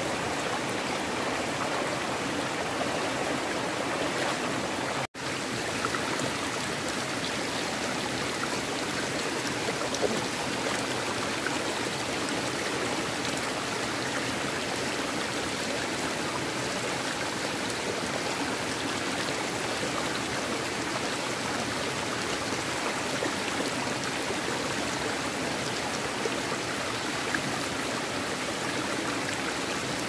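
Shallow rocky stream running steadily over stones, with a brief dropout about five seconds in.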